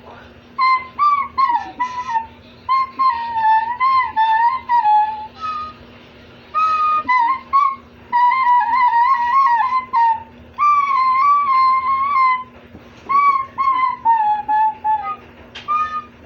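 A recorder played in short phrases of high notes, the pitch wavering and sliding between notes, with brief pauses between phrases.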